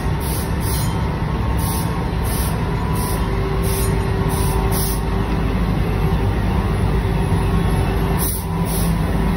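Industrial fabric printing machine running steadily: a constant mechanical hum with a soft high hiss pulsing about every two-thirds of a second.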